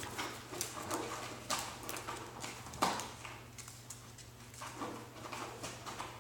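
Alaskan Klee Kai puppies shifting about in a cardboard box: irregular knocks and scratches of paws and claws on the cardboard, the loudest about three seconds in.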